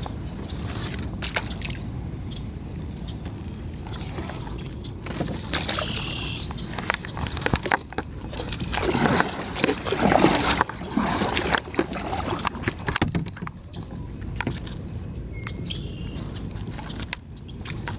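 Kayak paddle strokes sloshing and splashing in marsh water, loudest about halfway through, with scattered clicks and knocks.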